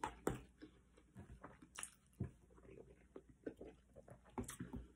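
Close-up chewing of food with the mouth closed, a run of soft irregular wet clicks and smacks, with a few sharper clicks from a metal fork working through food on a paper plate.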